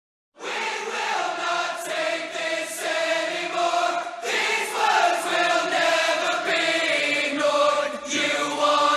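Background music of choir-like voices singing long, held notes, starting suddenly about a third of a second in.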